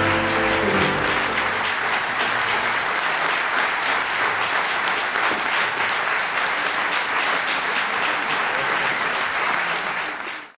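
Audience applauding, with the last notes of the music dying away in the first second or so; the applause cuts off abruptly near the end.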